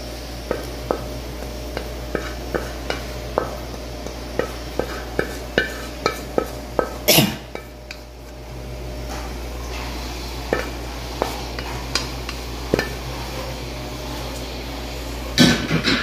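Wooden spatula scraping and knocking cooked scrambled egg out of a black wok into a ceramic plate: a run of short scrapes and taps about every half second. There is a louder scrape-and-clatter about seven seconds in and another near the end, over a low steady hum.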